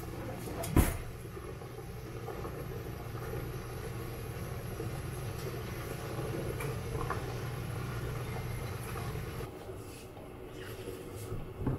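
A steady low hum with a single sharp click about a second in; the hum drops away shortly before the end.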